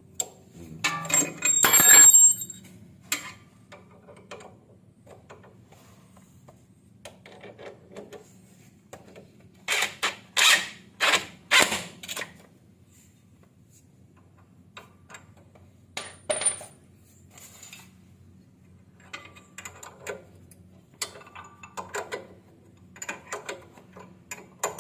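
Hand tools and metal suspension parts clinking and knocking at irregular intervals while the nuts of a new stabilizer link are tightened, with a loud ringing metal clank about two seconds in and a quick run of four or five knocks near the middle.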